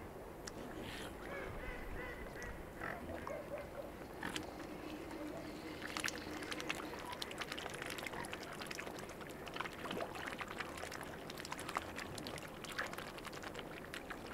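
Mute swans feeding at the water's edge: a few calls in the first seconds, one of them a drawn-out low note, then from about six seconds in a dense run of quick clicks and splashes as their bills dabble and peck at corn in the shallow water.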